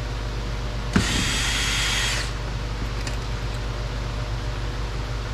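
Power drill/driver whirring for just over a second as it backs out a Phillips screw from a car's door trim panel, starting with a click.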